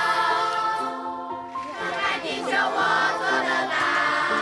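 Children singing a song together in chorus over an instrumental backing track.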